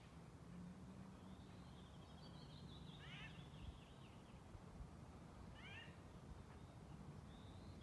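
Faint forest birdsong: a quick trill near the start and end, and two runs of short downward-sliding call notes about three and six seconds in, over a low steady hum.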